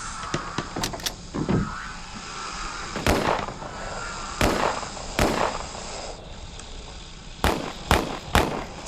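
Horror sound-effect track: a series of sharp bangs at irregular intervals, each trailing off briefly, over a steady hiss with a faint wavering tone; three bangs come in quick succession near the end.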